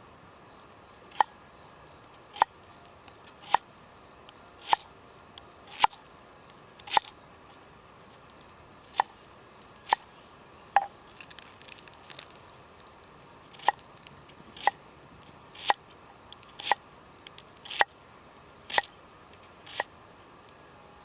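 Repeated sharp knocks, about one a second, each with a short ringing tone, as of a tool striking something hard. The strikes pause briefly twice, with a few softer clicks in the second pause.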